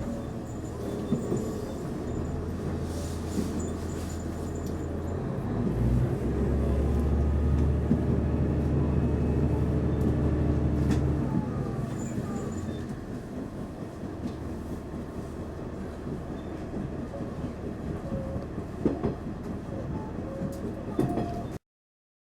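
Train running with a steady low rumble and hum that swells for several seconds in the middle, then eases off, with a few light knocks and clicks. The sound cuts off abruptly just before the end.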